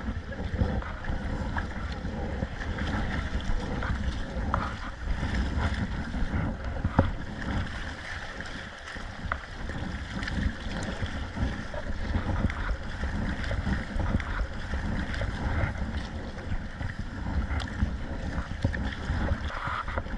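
Wind buffeting the microphone over water sloshing around a kayak out in rough sea waves, with a few sharp splashes or knocks now and then.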